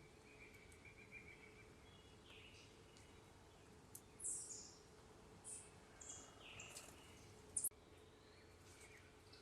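Wild backyard birds calling faintly: scattered short chirps and high chips, with one sharper, louder chip about three-quarters of the way through, over a faint steady hum.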